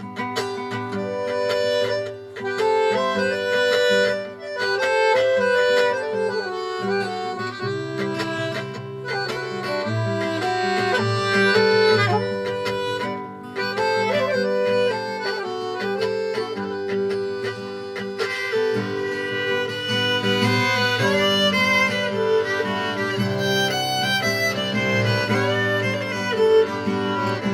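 Folk quartet of violin, accordion, saxophone and guitar playing a slow reel, with notes held and the melody moving steadily.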